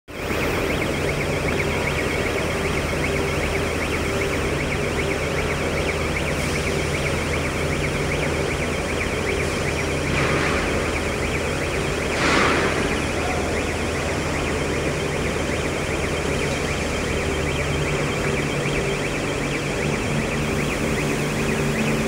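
Steady industrial drone of an aluminium induction melting furnace installation, several constant hum tones over a hiss. Two short hissing bursts come about ten and twelve seconds in, and the lowest hum drops out near the end.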